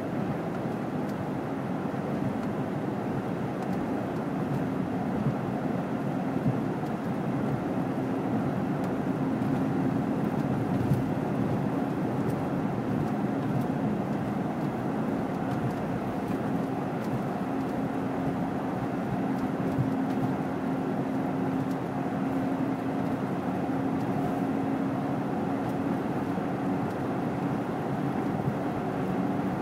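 Steady driving noise of a road vehicle: a constant drone of engine and tyres with a faint steady hum underneath, unchanging throughout.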